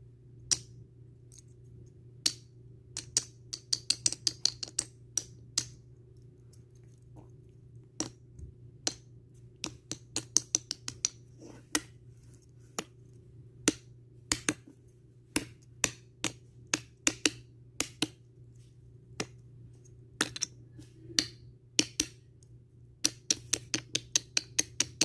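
Series of sharp clicks or taps at an uneven rhythm, some single and some in quick runs, over a steady low hum.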